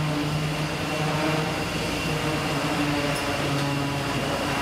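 Steady running noise of fish-processing machinery on a factory ship's processing deck, with a low hum that drops out around the middle and comes back near the end.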